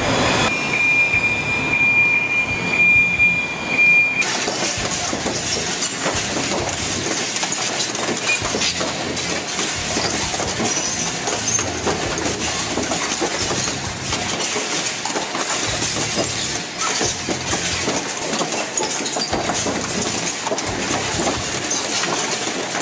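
Industrial twin-shaft metal shredder: a steady high whine as it runs, then, about four seconds in, a loud continuous grinding as a coil of sheet metal is torn into strips by its cutters.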